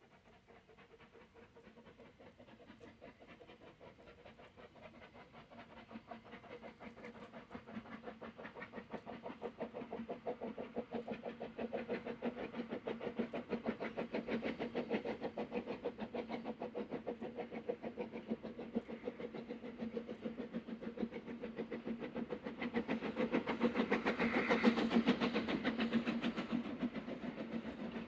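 Narrow-gauge steam locomotive working a train, its rapid exhaust beats growing steadily louder as it approaches, loudest a few seconds before the end.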